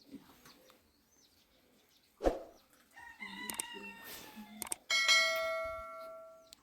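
A thud, then a rooster crowing for nearly two seconds, then something metal struck once and ringing with a steady tone that slowly dies away.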